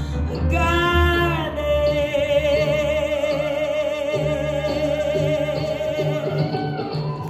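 Live music: a woman singing with banjo and band, a short rising phrase and then one long held note with vibrato lasting about five seconds, over a steady low bass.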